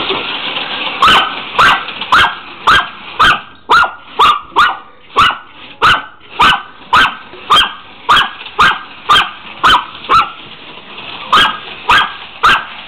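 A dog barking over and over, about two sharp barks a second, with a short pause about ten seconds in: excited barking at slot cars running on the track.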